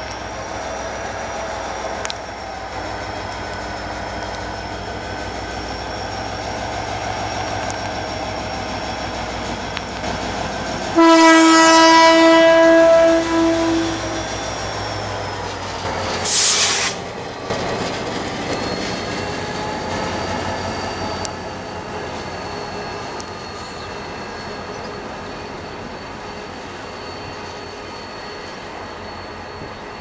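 GT22 diesel locomotive with an EMD two-stroke engine pulling away with a train, running steadily, and sounding one long horn blast of about three seconds about a third of the way in. A brief hiss follows, then the passenger coaches roll past with wheels clicking over the rail joints.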